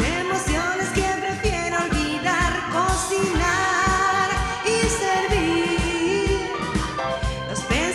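A woman singing a rock-blues song over a steady drum beat.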